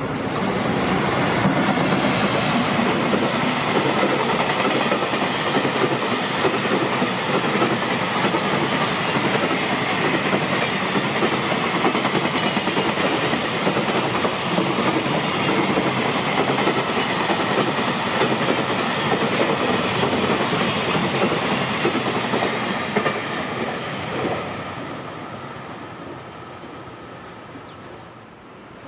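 Freight train passing at speed, its wheels running over the rails with a faint steady high whine. The sound holds for more than twenty seconds, then fades away after about twenty-four seconds as the train draws off.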